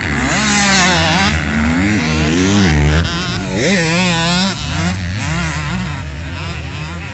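A 65 cc two-stroke motocross bike revving hard through a corner and accelerating away, its engine pitch rising and dropping over and over. It fades from about halfway through as the bike rides off.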